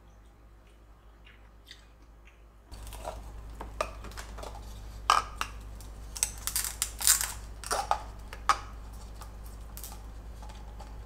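Spoon stirring and scraping a half-frozen coconut-milk ice mixture in a glass bowl: a run of irregular crunches and clicks against the glass, loudest in the middle, dying away near the end.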